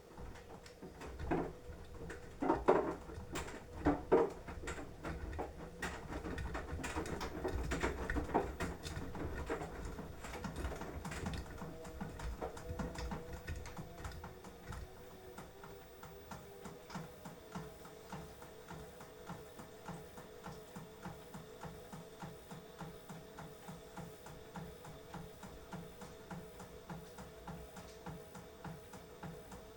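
Beko washing machine mid-cycle: the drum turns with a few thuds and a rush of tumbling laundry and water in the first half. After that comes a steady motor hum with regular ticking, about three a second.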